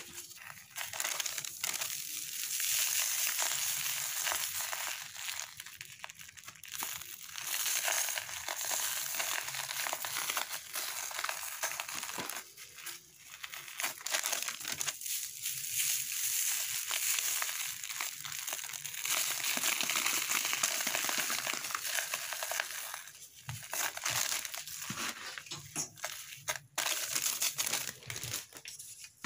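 Dry sand-and-cement powder and a compacted sand-cement ball crumbled, rubbed and sprinkled by hand: a gritty crunching and rustling that comes in stretches of a few seconds with short pauses between.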